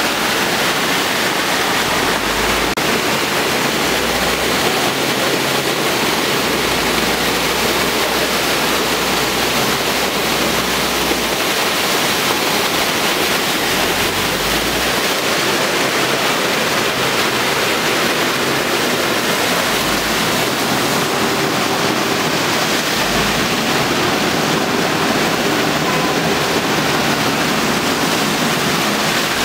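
Muddy floodwater pouring over a concrete wall in a steady, loud rush.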